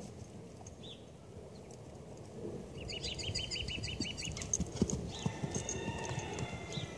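Hoofbeats of a horse approaching across grassy ground, thudding louder from about halfway through. A bird sings a quick high trill in the background around the middle.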